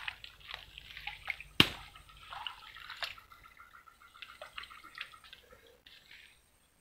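Shallow swamp water dripping and splashing lightly as hands work in it at a fishing hole, with scattered small ticks and one sharp tick about a second and a half in.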